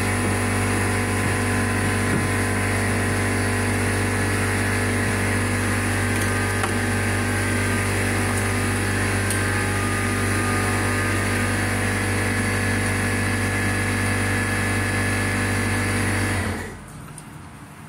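A steady mechanical drone with a constant low hum and unchanging pitch, which cuts off suddenly near the end.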